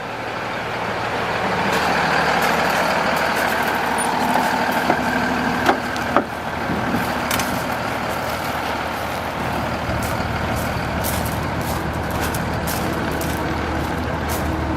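Paccar PX7 inline-six diesel engine of a Kenworth T270 truck running steadily, with a couple of short clicks about six seconds in.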